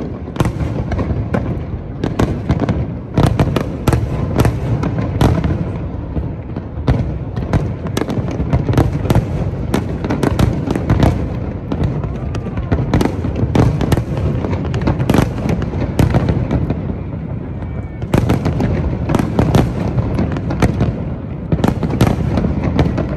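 Aerial fireworks display: a continuous barrage of shell bursts, many sharp bangs in quick succession, coming in dense clusters over a low rumble.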